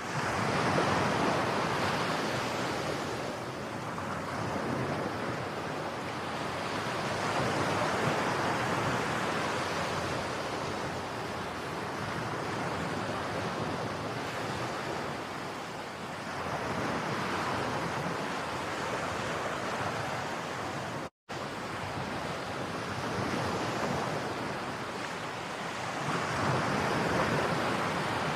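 Ocean surf breaking on a beach: a continuous wash of waves that swells and fades roughly every eight to ten seconds. The sound cuts out for a split second about three-quarters of the way through.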